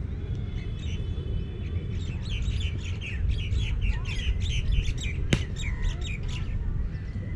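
A bird calling in a rapid series of short, high chirps, about three a second, for some four seconds starting about two seconds in, after a few held whistled notes. A single sharp click comes about two-thirds of the way through, and a steady low rumble runs underneath.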